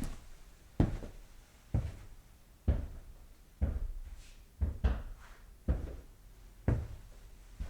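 Footsteps walking at a steady pace, about one step a second, each a sharp heel strike with a heavy low thud.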